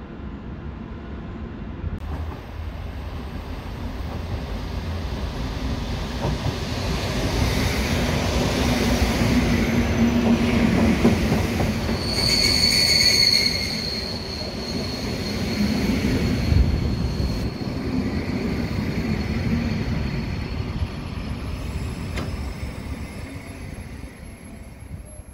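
Trains at a station: steady rumble of wheels on the rails, with a high wheel squeal about halfway through that lingers thinly for several seconds. Near the end a long freight train of open wagons rolls past.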